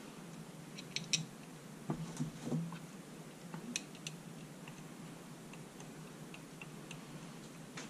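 Faint, scattered light clicks and taps of metal as bolts are turned in finger-tight on a Sanden 709 A/C compressor. Small clusters of clicks come about one, two and four seconds in, then only a few faint ticks.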